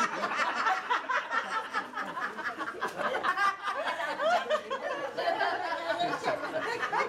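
A group of people laughing and talking over one another around a table.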